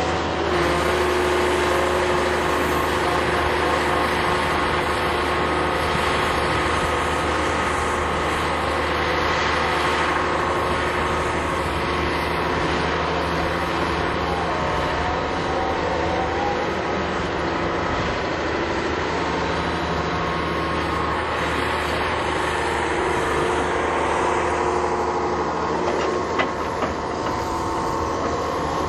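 Daewoo DE12TIS six-cylinder turbo diesel of a Daewoo SL340LC-V excavator running steadily while the machine travels on its steel tracks, with track clatter. A few sharp clicks come near the end.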